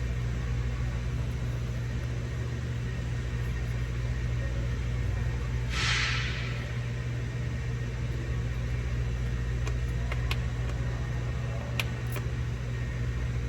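Steady low machine hum, with a short hiss about six seconds in and a few light clicks near the end.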